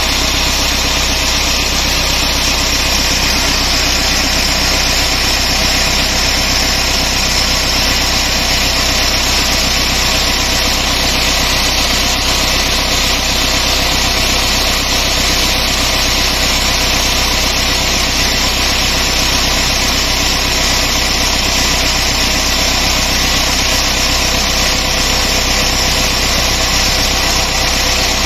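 Massey Ferguson 375 tractor's diesel engine running at a steady speed while it drives a tubewell pump, mixed with the steady rush of water pouring from the discharge pipe.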